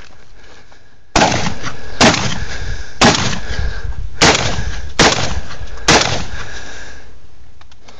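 Shotgun fired six times in a steady string, about one shot a second, each a sharp report.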